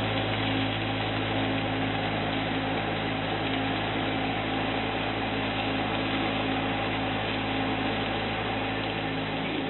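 Steady hum of kitchen machinery, with several even tones over a constant hiss, unchanged throughout.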